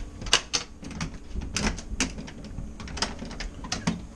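A door latch being worked and rattled by hand, making a quick, irregular run of sharp metal clicks and knocks.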